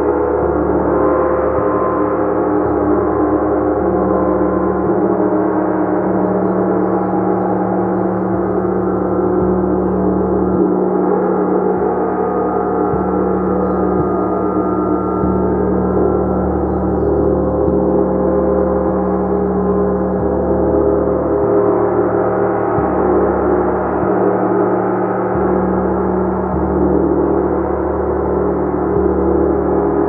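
Gong played continuously: a loud, steady, dense wash of many overlapping tones with no single strike standing out, its lowest notes shifting every second or two.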